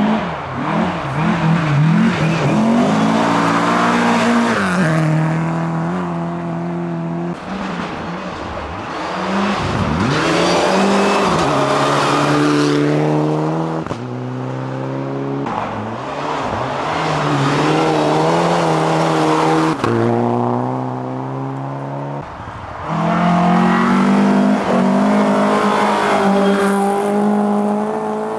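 Historic rally car engine revving hard through the gears, its pitch climbing and then dropping sharply at each gear change, over and over.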